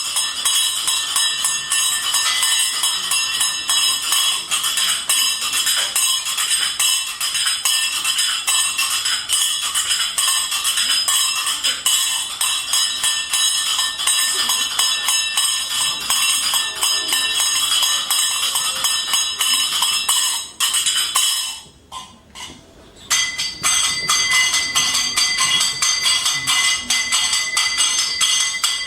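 Dense, fast metallic percussion: many rapid jingling and clattering strikes over a steady high ringing, with almost no bass. It drops away briefly about 21 seconds in, then starts again.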